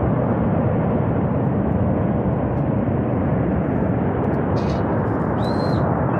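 Steady, dense rushing noise of a glacier-burst flash flood, water and debris surging down the river valley, holding an even level throughout.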